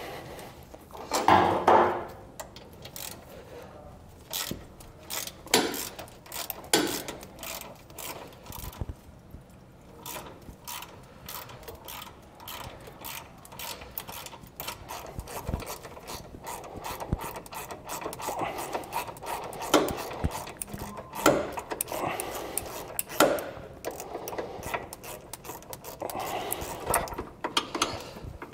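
A 3/8-inch socket ratchet clicking in rapid runs as it backs a loosened tow hook bolt out of a pickup's frame, with a few louder knocks of the tool along the way.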